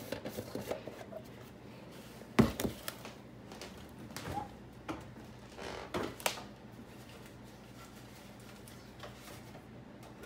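Scattered knocks, clicks and rustles of kitchen items being handled while sugar and butter go into a pot of yams, the loudest a sharp knock about two and a half seconds in.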